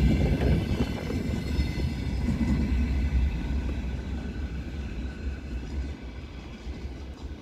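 Heavy iron ore pellet freight train rolling past, a steady low rumble of wheels on rail with faint steady tones above, fading away as the train recedes.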